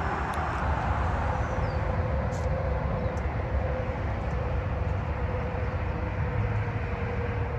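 Steady low rumble of vehicle traffic, with a faint steady hum running through it.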